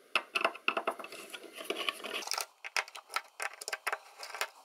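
Hand screwdriver backing small screws out of a metal equipment cover: a run of quick, irregular metal clicks and scrapes.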